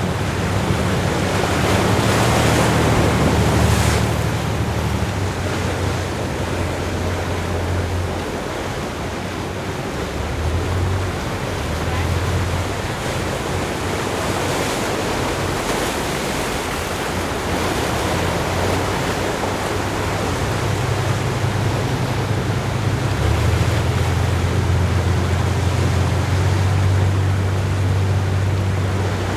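Wind and water noise on a moving boat, with the boat's low engine hum fading in and out: strong at the start, dropping away, then back in the second half.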